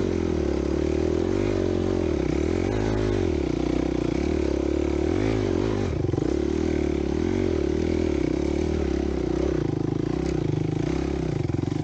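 Dirt bike engine running at varying throttle while riding a trail, its pitch rising and falling again and again.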